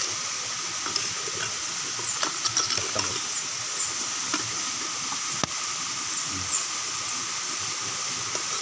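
Metal ladle stirring goat-meat curry in a clay pot, clicking and scraping against the pot, over a steady hiss. One sharper knock about halfway through.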